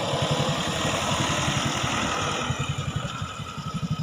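A small engine running at a steady idle, with a fast, even putter under a steady hiss.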